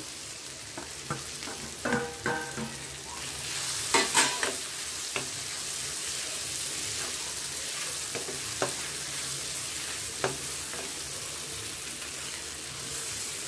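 Oil sizzling steadily in a kadai as fried ivy gourd pieces are stirred into an onion-tomato masala, the sizzle thickening about three seconds in. The stirring utensil scrapes and knocks against the pan now and then, loudest twice about four seconds in.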